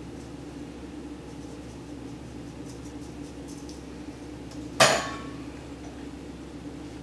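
A metal kitchen utensil strikes a glass mixing bowl once, about five seconds in: a sharp clink with a short ring. Before it, faint light tapping of a wire whisk working flour through a sieve, over a steady low hum.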